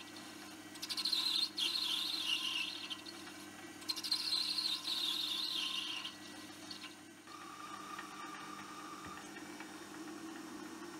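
Metal lathe cutting a brass knob with a hand-swung ball-turning tool: the tool squeals high-pitched in two-second passes over the lathe's steady hum. After about six seconds the cutting stops and only the hum remains.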